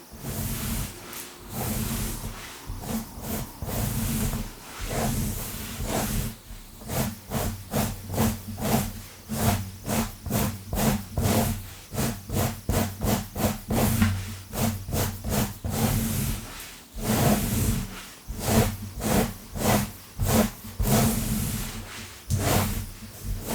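Long fingernails scratching fast through hair on a scalp, close to the microphone: a run of quick scratching strokes, fastest in the middle stretch at about three a second.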